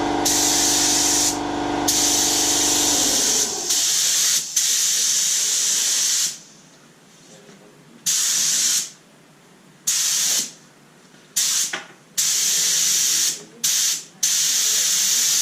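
Air-fed paint spray gun hissing as paint is sprayed: one long pass, then a series of short trigger pulls of about half a second to a second each. For the first three seconds a steady motor hum, typical of an air compressor running, sits underneath and then cuts off.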